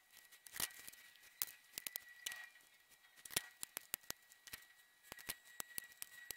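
Flush cutters snipping the excess capacitor leads off a circuit board: many sharp, irregularly spaced clicks, over a faint steady high tone.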